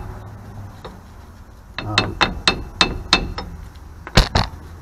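Steel hammer tapping on the axle shaft flange of a Mopar 8¾ rear axle: about six quick metallic taps, a little under four a second, then two louder clanks near the end. The taps drive the axle inward to push the opposite bearing into its race and take up axle end play after the adjuster nut has been turned.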